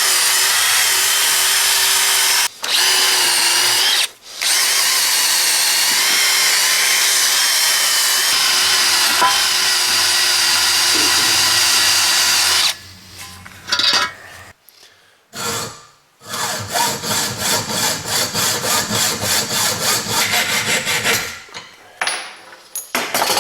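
Electric drill running steadily with a sharp bit, drilling out metal. It cuts out twice for a moment in the first few seconds and stops about halfway through. After a short pause comes a fast, regular run of strokes, about five a second, lasting several seconds.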